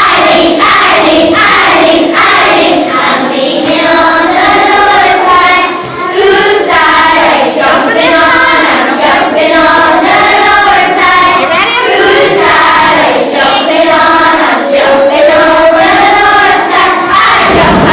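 A group of primary-school children singing a song together.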